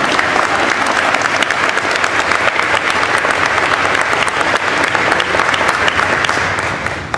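Audience applauding: dense clapping that dies down near the end.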